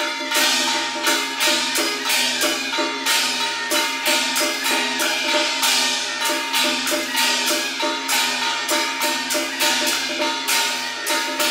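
Beiguan ensemble playing: suona shawms hold piercing, steady reed notes over a steady beat of clashing cymbals, gong and small drum strokes.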